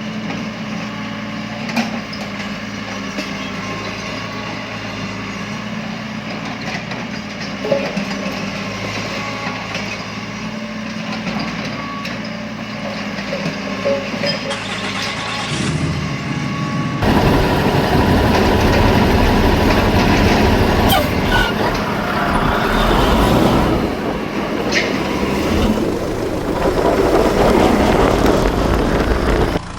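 Heavy vehicle engine running steadily. About halfway through, the sound switches abruptly to a louder, rougher noise.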